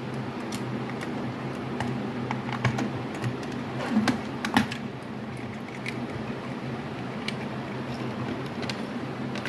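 Scattered plastic clicks and knocks as a landline telephone's casing is handled and taken apart, with a cluster of louder knocks about halfway through. A steady low hum runs underneath.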